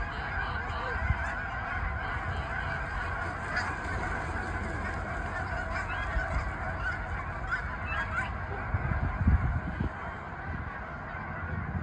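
A large flock of geese honking, many calls overlapping without pause. Underneath runs a low rumble that peaks about nine seconds in.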